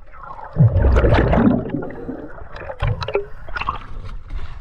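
Water splashing and sloshing around the camera as it comes up through the sea surface, with the loudest surge about a second in and a smaller one near three seconds.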